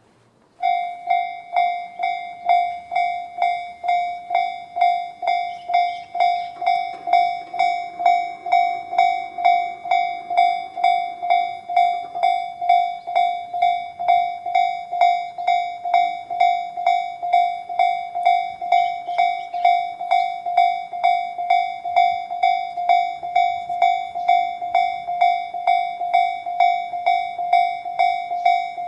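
Japanese level-crossing electronic warning bell switching on about half a second in and ringing evenly at about two dings a second, the Tobu Railway 'type C' tone sounding from both sides of the crossing, which signals an approaching train.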